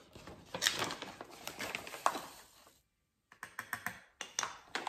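A measuring spoon scooping from a plastic pouch of powdered sweetener, with rustling and light clicks, then a run of small taps as the spoon goes to a small glass jar after a brief pause about three seconds in.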